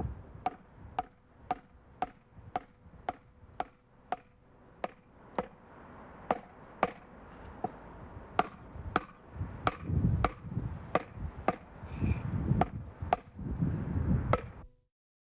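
Butt of a wooden hammer handle tapping a concrete paving slab, about two sharp knocks a second, growing louder partway through and stopping abruptly near the end: the slab being tapped down to bed it level in the laying mix.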